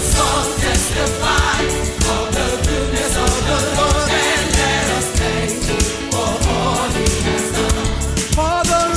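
Gospel song: a choir singing over instrumental backing with a steady beat.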